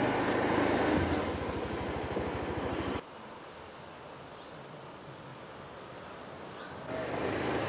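A small engine running with a steady, even low putter for about three seconds. It cuts off suddenly into a much quieter outdoor hush with a couple of faint high chirps. The engine sound comes back near the end.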